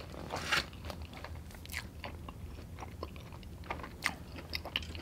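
A person chewing food close to the microphone, with irregular crunches and wet mouth clicks.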